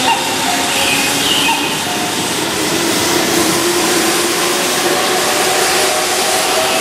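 Keihan 9000-series train (set 9004) pulling away from the platform, its VVVF inverter traction motors whining with a slow rise in pitch as it gathers speed, over steady wheel and running noise.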